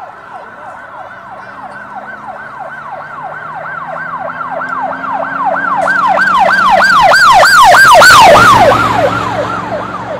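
A passing vehicle's fast yelping siren, wailing up and down about four times a second over a low engine drone. It grows louder to a peak about eight seconds in, drops in pitch as it goes by, then fades.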